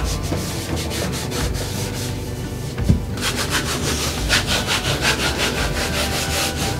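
A flushable toilet-cleaning sheet rubbed back and forth over hard surfaces in quick wiping strokes. The rubbing grows louder and more even about three seconds in, at roughly four to five strokes a second, as the sheet wipes the floor.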